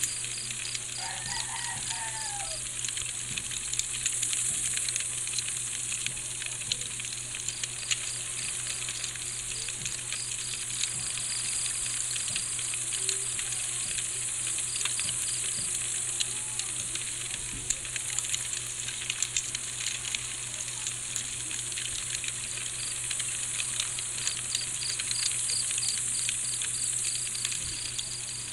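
Crickets chirping steadily, over a campfire crackling and popping with many small irregular snaps. A short warbling bird call comes about a second in.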